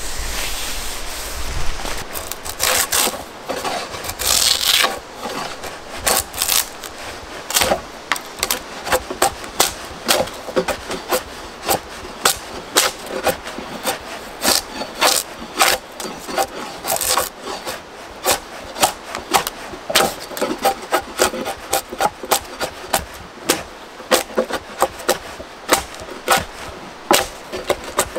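Drawknife shaving the edge of a wooden board in a long series of short scraping strokes, roughly two a second.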